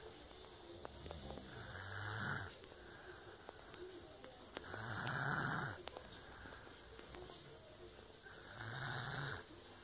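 A child snoring loudly in sleep: three rasping snores, each about a second long and a few seconds apart, the middle one loudest.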